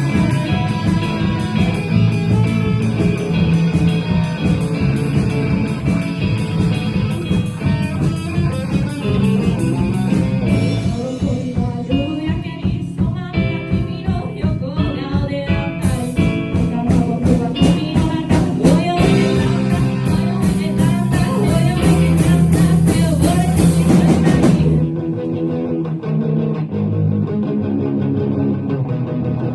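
Live rock band playing: electric guitars, bass and drum kit, with singing. About 25 seconds in the drums and cymbals stop and the guitars and bass carry on alone, a little quieter.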